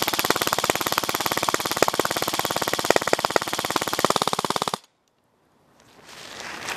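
KWA M4 RIS airsoft electric gun firing full auto, a rapid even stream of shots, with .25 g BBs striking the nylon barrel sock over the muzzle. The firing stops abruptly just under five seconds in. Near the end there is faint rustling as the sock is handled.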